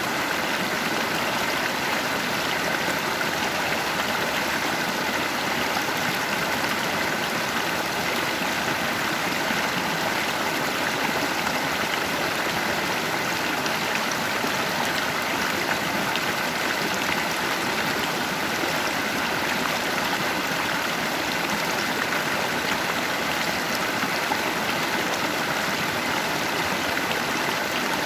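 Stream of water rushing and gurgling steadily over rocks, with no pauses or changes.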